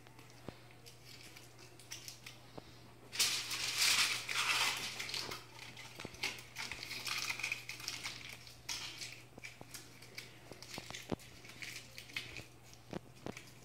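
Aluminum foil being torn and crinkled: a loud tearing crackle about three seconds in, then smaller crinkles and light clicks as foil pieces are pressed around the bone ends of chicken drumsticks on a metal baking tray.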